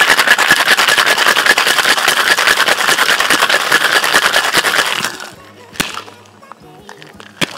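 Ice rattling hard inside a two-piece metal tin cocktail shaker, shaken vigorously for about five seconds, then stopping abruptly. Two sharp metallic knocks follow a little later.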